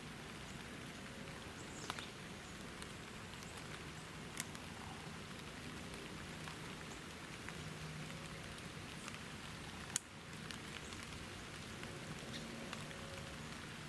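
Steady light rain pattering, with scattered drop ticks and a few sharper clicks, the sharpest about ten seconds in.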